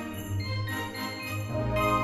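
Background music with jingling bells, growing fuller and a little louder about one and a half seconds in.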